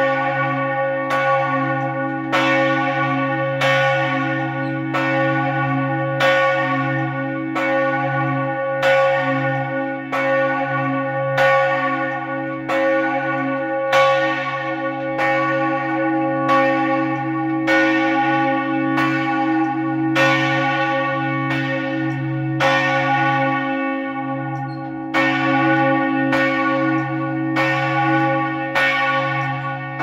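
Church tenor bell being rung down: its clapper strikes the swinging bell in quick, even succession, each stroke ringing on into the next over a steady deep hum.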